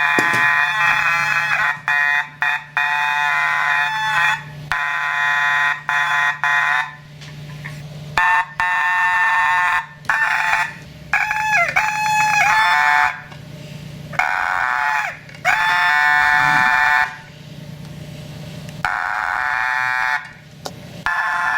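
An electric alarm horn sounds in irregular buzzing blasts of one to four seconds each, cutting in and out. Its pitch wavers and sags for a moment about halfway through. A steady low electrical hum runs underneath.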